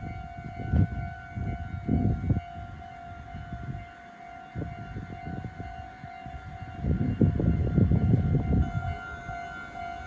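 Japanese level-crossing warning bell ringing its steady electronic "kan-kan" tone. A train rumbles and clatters past, heaviest from about seven seconds in.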